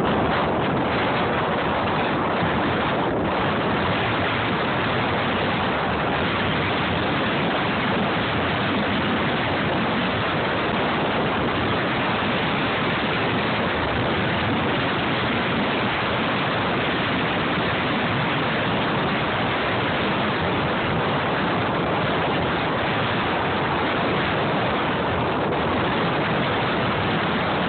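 Strong wind blowing across a phone's microphone: a loud, steady rush of noise.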